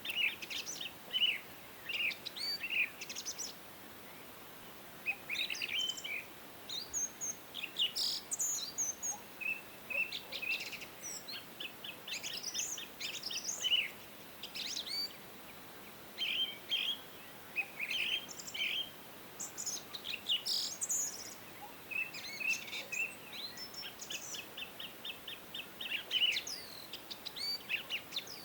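Several songbirds chirping and singing throughout, short calls mixed with rapid trills of repeated notes, over a faint steady background noise.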